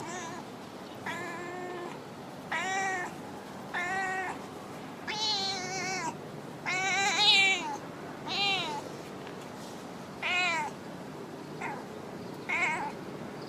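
A stray cat meowing repeatedly in a sultry voice: about nine drawn-out meows a second or so apart, each rising and then falling in pitch, the longest and loudest about seven seconds in.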